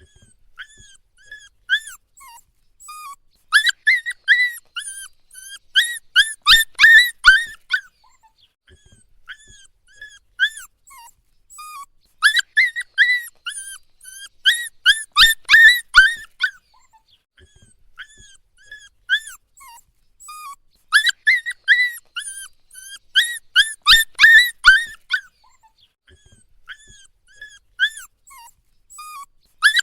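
Puppy whining and crying: short, high-pitched whimpers, each rising and falling in pitch, bunched into louder bouts of rapid cries about every nine seconds, with softer single whimpers in between.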